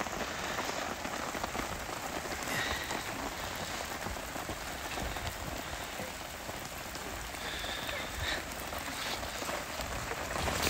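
Steady rain falling on the campsite's canvas tarp and tents.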